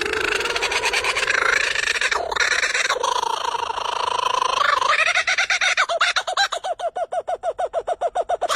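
A bird's call: a long wavering, pitched cry that about five seconds in breaks into a fast, even run of short repeated notes, about nine a second.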